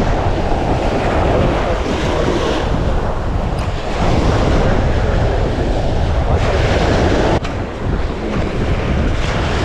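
Surf washing onto the beach in rolling surges, with wind buffeting the microphone as a low rumble. A single sharp click comes about seven seconds in.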